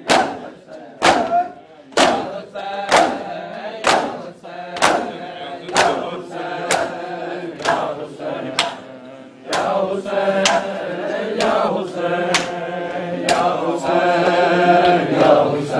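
Men's group chanting of a Muharram noha with matam: open hands striking chests in unison about once a second. The chanting swells louder about two-thirds of the way through.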